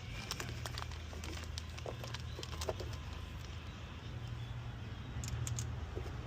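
Light, scattered clicks and taps of new rocker arms and other metal valvetrain parts being handled and set into place on the engine, over a steady low hum.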